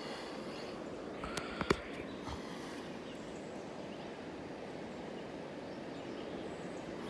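Steady rush of flowing river water, with a few brief clicks between one and two seconds in.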